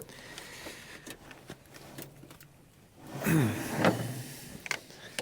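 Scattered light clicks and taps of hand work on a car battery as its cables are hooked up, with a short spoken "There" about three seconds in.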